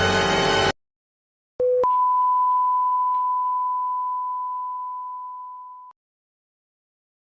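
Electronic beep sound effect: a short, lower blip, then one long, steady, high beep that slowly fades for about four seconds before it cuts off. Before it, a music clip ends abruptly.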